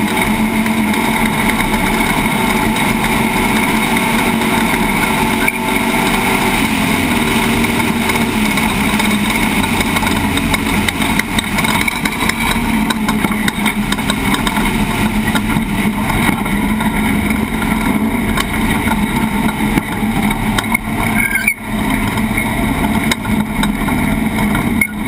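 Class 1450 off-road race truck running hard at speed: a loud, steady engine note over heavy road and wind noise, the pitch shifting slightly with the throttle.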